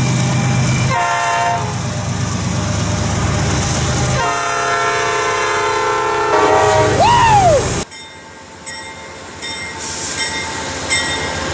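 Diesel freight locomotive's air horn: a short blast about a second in, then a long multi-note blast from about four seconds in, over the low engine rumble of the passing train. Near the end of the long blast the sound cuts off abruptly to a much quieter background with faint repeated ticks.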